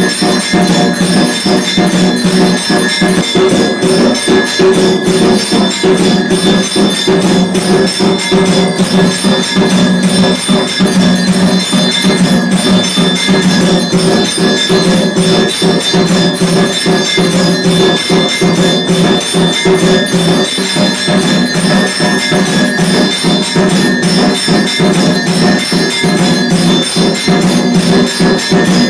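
Temple bells ringing without pause during an aarti, struck rapidly, with jingling metal percussion over them; loud and steady throughout.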